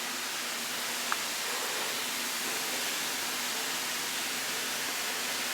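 Steady rush of water from a tap left running, an even hiss with no change in level. A single faint click about a second in.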